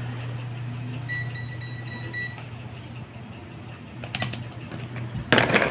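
Digital multimeter beeping: a high beep repeated five or six times in quick succession for about a second, over a steady low hum. A click about four seconds in and a loud clatter of small parts handled on the bench near the end.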